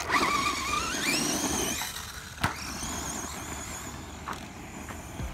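Electric motor and gear drive of a 1/10-scale Pro-Line PRO-MT 4x4 RC monster truck, running on 2S, whining and rising steeply in pitch as the truck accelerates across dirt, then holding a high, fairly steady whine. A single sharp knock about two and a half seconds in.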